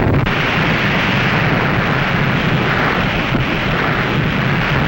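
Continuous loud rumble of an atomic explosion on the film's soundtrack: a steady, dense noise with no separate blasts or pauses.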